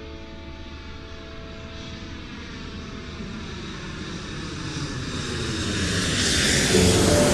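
Aircraft flying past, a broad rushing noise that grows steadily louder through the second half. Lingering music notes fade in the first seconds, and music comes back in near the end.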